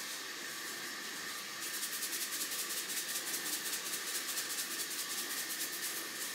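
Salt shaker shaken over raw meat in a plastic box: a fast, even rattle of about eight shakes a second for roughly four seconds, over a steady background hiss.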